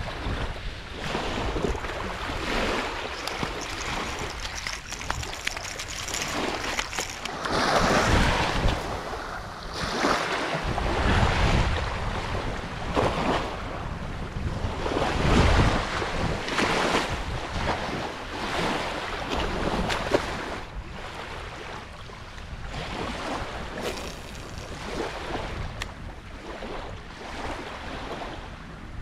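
Wind gusting over the microphone, with small waves lapping at the shoreline, rising and falling unevenly. One sharp knock about twenty seconds in.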